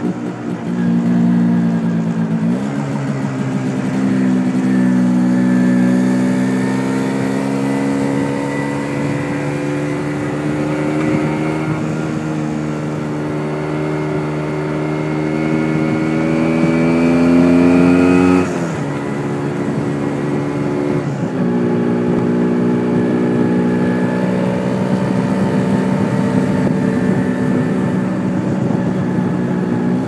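MZ ETZ 250's single-cylinder two-stroke engine under way. Its note climbs steadily as the bike pulls, drops sharply about two seconds in and again about eighteen seconds in, then climbs again, with wind noise on the microphone. The owner says the engine was running a bit lean on an undersized main jet.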